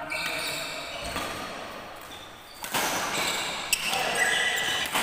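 Badminton rally: a few sharp racket strikes on the shuttlecock, with sneakers squeaking on the court floor between shots.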